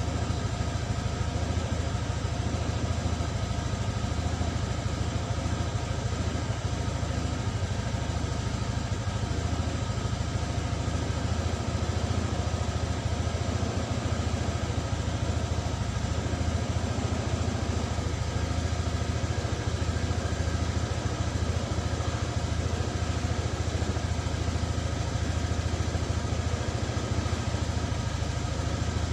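Motorcycle engine idling steadily, with no revving.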